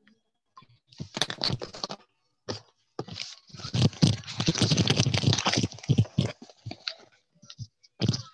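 Crackling, scraping rustle, in a burst about a second in, a longer stretch from about three to seven seconds, and a last short burst near the end.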